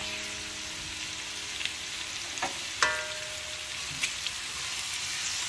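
Pork belly cubes sizzling in a wok with a steady frying hiss as they start to render their own fat. A wooden spatula knocks against the wok twice, about two and a half and three seconds in, the second knock ringing briefly.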